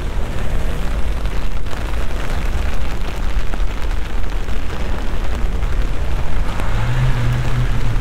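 Deep, steady rumble under a hiss of light rain on a wet street, with a short low hum near the end.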